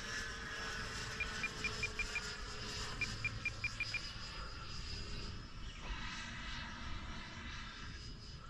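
Electric ducted-fan motor of an RC jet flying, a steady distant whine. Twice a short run of about six quick, evenly spaced high beeps sounds over it.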